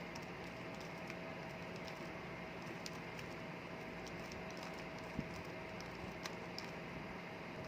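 Rubik's cube being turned through an OLL algorithm: faint, irregular plastic clicks of the layers turning, over a steady hiss and low hum.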